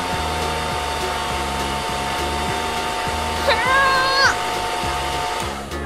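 Hand-held hair dryer blowing steadily with a thin motor whine, which stops shortly before the end. A short high-pitched call sounds about three and a half seconds in, over a low music beat.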